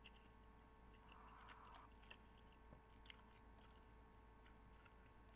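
Near silence: faint room tone with a few tiny clicks.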